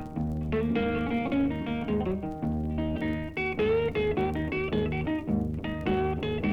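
Solo blues guitar playing an instrumental break between sung lines: picked single-note runs over a repeating low bass note.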